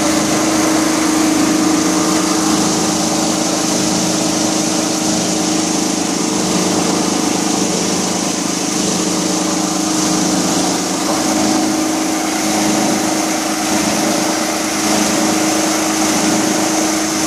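Plastic crusher driven by a 37 kW electric motor running steadily, a constant drone with a steady hum. No crushing or impacts are heard, so it is running empty.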